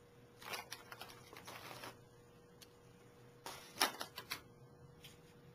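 Items being picked up off a cloth-covered table: a plastic snack bag rustling, and light clicks and knocks of chopsticks and lacquer bowls being handled. The noise comes in two bursts, the first about half a second in, the second, with the sharpest clicks, about three and a half seconds in.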